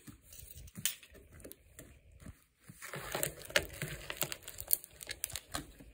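Cardboard box and packaging being handled and opened: irregular crinkling, scraping and tapping, with a short lull about two and a half seconds in.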